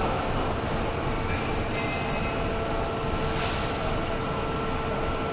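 Industrial parts-washing machine running: a steady mechanical drone with a constant hum, and a brief hiss about three and a half seconds in.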